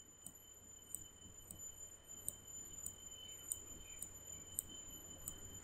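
Faint background noise: a steady high-pitched whine with light ticks about twice a second.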